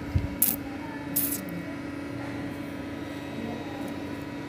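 Small plastic toy animals being handled and moved about: a light knock just after the start, then two short scraping rustles about half a second and a second in, over a steady hum.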